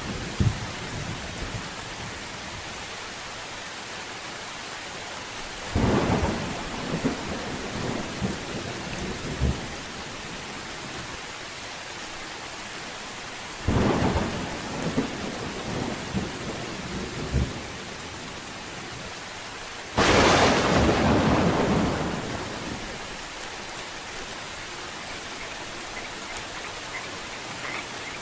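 Steady rain with three sudden claps of thunder, about six, fourteen and twenty seconds in, each dying away over a few seconds; the last is the loudest and longest.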